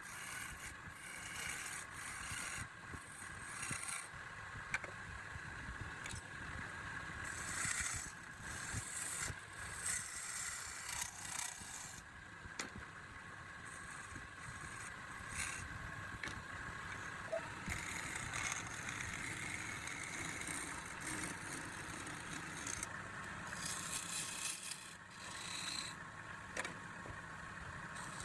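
A wood lathe running while a cutting tool scrapes against the spinning wood. The sound shifts abruptly several times.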